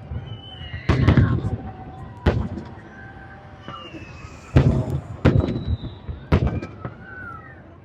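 Aerial fireworks shells bursting overhead: a series of sharp bangs at irregular intervals, each with a low rumbling tail, the loudest about four and a half seconds in.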